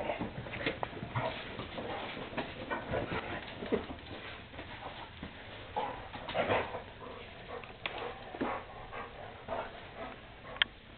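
Two dogs playing on a tile floor: irregular scuffling and clicks of paws and claws, mixed with short dog vocalisations. There is one sharp click near the end.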